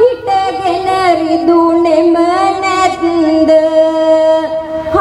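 A voice singing Sinhala impromptu verse (hitivana kavi) in a chanted melody into a microphone, drawing out long held notes that bend slowly between pitches.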